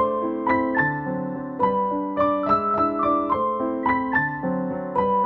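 Background music: a gentle electric piano melody of evenly struck notes over soft chords.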